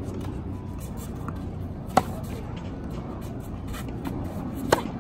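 Tennis ball struck by racket strings during a baseline rally: two sharp pops about two and a half seconds apart, the first on a forehand.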